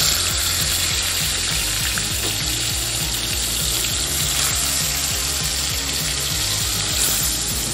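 Katla fish steaks frying in hot oil in a steel pan: a steady, loud sizzle as the pieces are laid in, with a low pulsing hum underneath.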